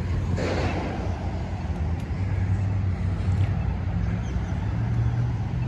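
Motor vehicle engine running with a steady low hum and road noise, with a brief rush of noise about half a second in.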